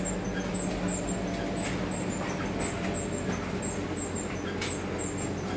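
Konica Minolta bizhub C250i colour copier-printer running a continuous print job: a steady mechanical hum with a faint high ticking about twice a second and a sharp click about four and a half seconds in.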